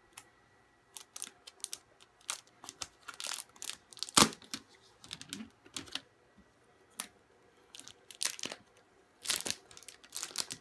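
Plastic protective wrap crinkling and crackling in irregular bursts as it is handled, with one sharp knock about four seconds in.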